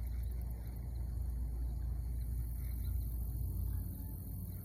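Wind buffeting the microphone outdoors, a low rumble that eases off near the end.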